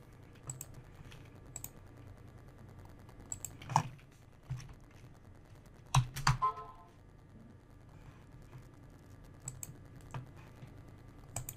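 Scattered keystrokes and clicks at a computer keyboard and mouse, a few at a time with pauses between them, the loudest about 4 and 6 seconds in.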